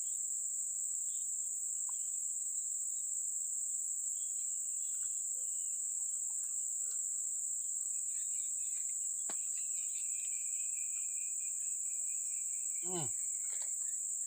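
Steady, high-pitched chorus of insects, an unbroken buzz that doesn't let up.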